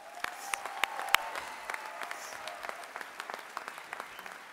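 Audience applauding, loudest at the start and slowly tapering off.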